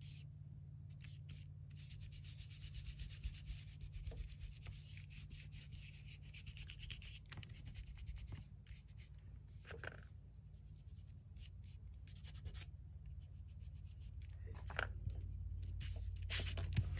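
Ink blending brush rubbing and scrubbing Distress Oxide ink onto paper, a faint swishing that comes and goes, over a steady low hum.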